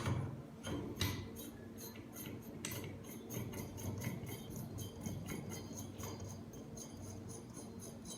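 Small metal-on-metal clicks and clinks as a crimping head is fitted and screwed onto a manual crimping machine, with a quick run of ticks in the middle.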